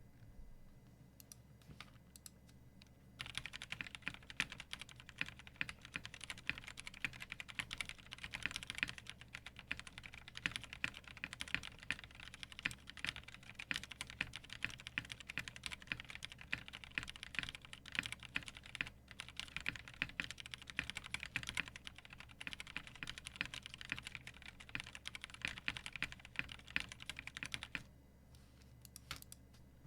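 Fast continuous typing on a custom mechanical keyboard: a KBD8X MK II with a polycarbonate case and plate, lubed NovelKeys x Kailh Cream linear switches and GMK Nautilus R2 keycaps. A few single keystrokes come first, then a steady stream of key clicks that stops near the end.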